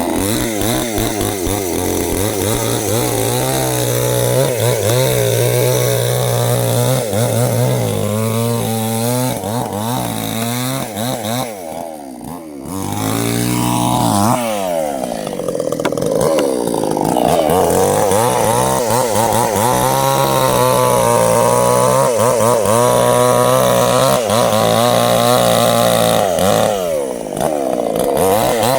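Two-stroke chainsaw running at high revs while cutting sengon wood, its pitch wavering as the chain loads up in the cut. About twelve seconds in the revs drop briefly, then the saw speeds up again and keeps cutting.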